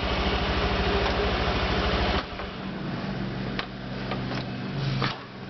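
Honda Vario 125 scooter's single-cylinder engine running with a rapid, even pulse, then dropping to a quieter steady idle a little over two seconds in, with a few light clicks. The owner believes the 'snore' noise has been cured by the new coil, spark plug and larger stainless muffler neck.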